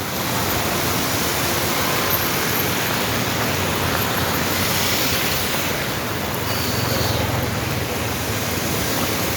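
A steady, even rushing hiss of heavy rain and running water.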